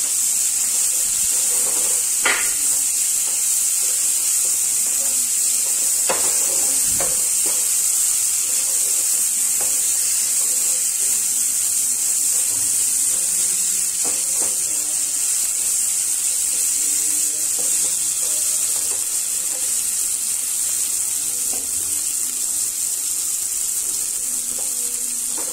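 Fried potatoes and tomato masala sizzling steadily in a kadai, with a few short scrapes and taps of a slotted spatula as they are stirred.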